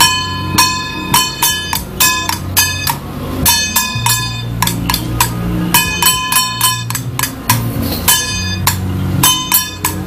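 Small handheld gongs struck with wooden sticks in quick clusters of two to four strokes, each stroke ringing brightly, over a low hum.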